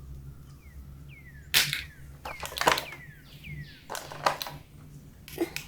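Sharp plastic clicks and snaps from a toy being handled, about five of them, with short downward-sliding squeaks in between.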